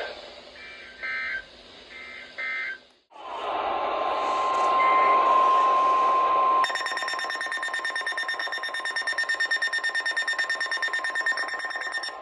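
Emergency Alert System audio. Three short two-tone data bursts come first, likely end-of-message codes, then a brief dropout. A steady single-pitch alert tone follows over static. About six and a half seconds in, an electronic alarm starts beeping rapidly.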